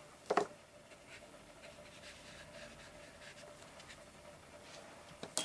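Faint scratching of a water-soluble wax crayon being worked on paper, with one brief louder noise about a third of a second in and a couple of sharp clicks at the very end.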